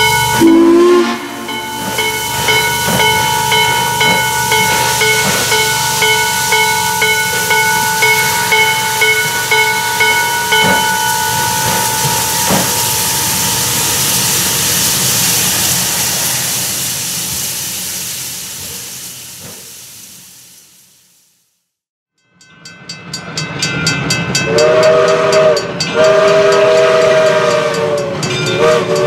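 Western Maryland 1309, a 2-6-6-2 Mallet steam locomotive, hissing loudly as it blows steam from its cylinder cocks, with its bell ringing at a steady beat. The hiss fades away to silence about three-quarters of the way through. Then a steam locomotive's chime whistle blows in long blasts.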